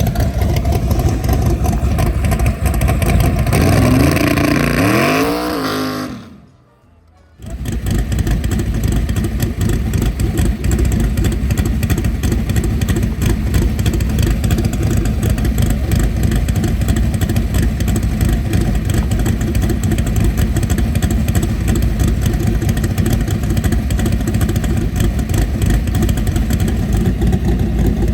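Car engine revving, its pitch rising and falling. It cuts out for about a second, then comes back as a loud, steady engine run with a rapid rough pulse.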